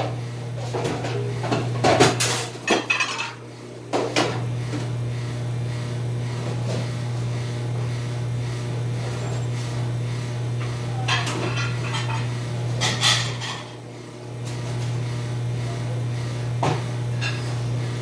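Dishes and cutlery clattering in bursts, first over the opening few seconds and again about two-thirds of the way through, with a single knock near the end. A steady low machine hum runs underneath.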